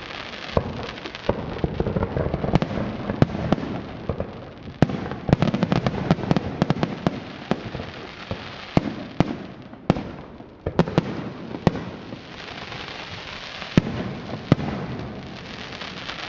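Fireworks display: a steady run of shell bursts, sharp bangs one after another over a continuous crackle, with a hissing, crackling patch of effects about three quarters of the way through.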